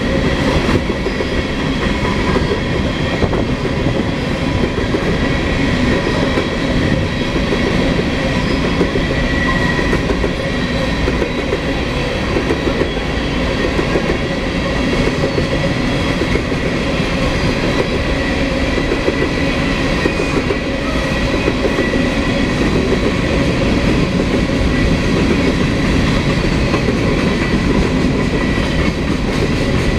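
Freight train of coal hopper cars rolling past at speed: a steady rumble and roar of steel wheels on the rails, with a faint steady high-pitched tone over it.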